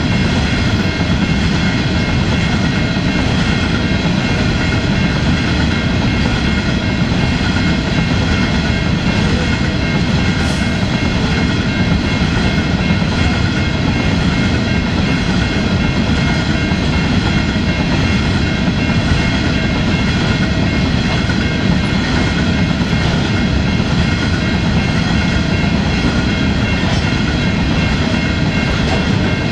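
Coal hopper wagons of a long freight train rolling past close by: a steady low rumble of steel wheels on rail, with a constant high whine over it.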